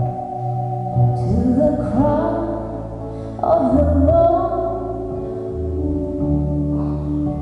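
Live pop song: a female voice singing a wavering melody over held instrumental chords and bass notes.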